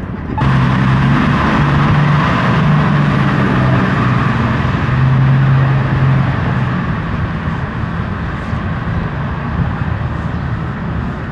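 A heavy road vehicle's engine passing close by in street traffic: a low steady hum over tyre and traffic noise. The hum drops away after about six or seven seconds.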